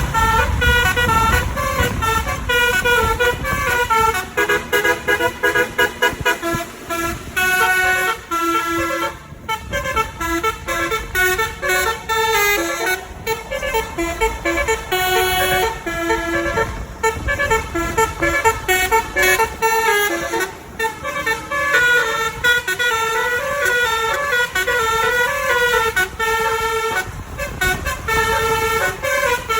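Telolet Basuri musical bus horn playing a tune: loud pitched horn notes stepping up and down in phrases, with short breaks between them.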